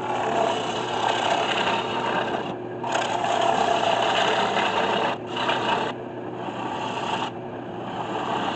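Turning gouge cutting spalted maple spinning on a 1981 Delta 12-inch lathe: a rough scraping cut in several passes that break off briefly about two and a half, five, six and seven seconds in. The lathe's steady hum runs underneath.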